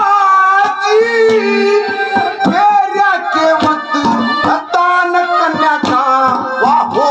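Male voice singing a Haryanvi ragni in a loud, held, ornamented line over steady hand-drum strokes and instrumental accompaniment.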